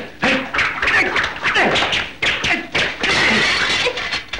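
Martial-arts fight sound effects: a rapid run of thuds and sharp hits, with short shouts and grunts between them.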